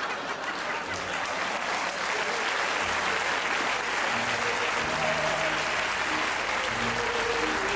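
Theatre audience applauding steadily, with many hands clapping at once. From about four seconds in, music with low held notes begins underneath.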